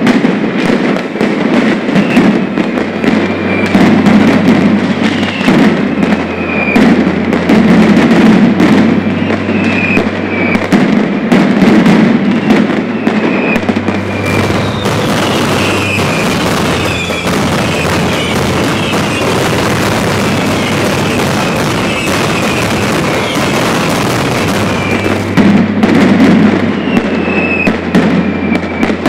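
Mascletà: a dense barrage of firecrackers going off in rapid succession, with short whistling tones scattered among the bangs. Through the middle stretch the explosions run together into a steadier, continuous volley.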